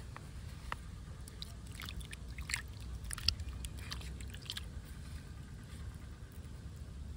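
Fire-charred eggplant being rubbed and peeled by hand in a clay pot of water: small wet splashes, squelches and clicks, busiest in the middle few seconds, over a low steady rumble.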